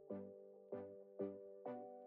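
Quiet background music: a steady pattern of soft notes, about two a second, over a held chord.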